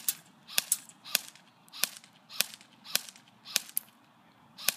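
Airsoft M4 electric rifle firing single shots at a steady pace, a sharp snap about every half second, about nine in all.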